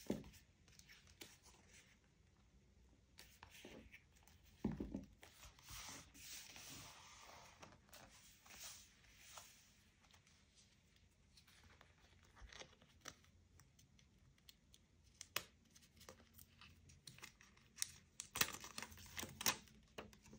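Paper being handled and torn, quietly, with scattered crinkles and taps and a brief flurry of sharper crackles near the end.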